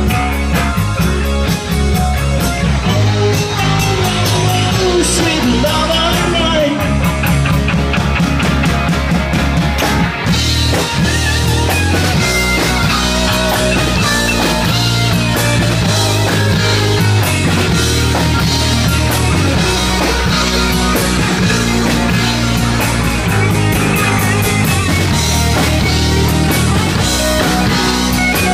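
Live rock band playing: electric guitar over a drum kit, with a bass line moving in steps underneath.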